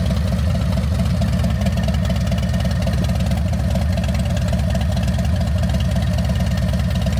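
Harley-Davidson Milwaukee-Eight 117 V-twin idling through an aftermarket exhaust, a loud, steady, evenly pulsing lope. It cuts off suddenly at the end.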